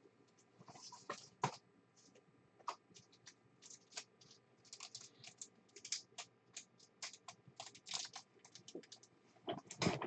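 Faint typing on a computer keyboard: quick, irregular key clicks that come thicker in the second half.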